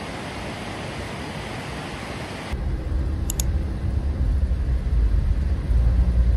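Steady hiss of heavy rain for about two and a half seconds, then a sudden change to the low rumble of a car driving on wet roads, heard from inside the taxi's cabin.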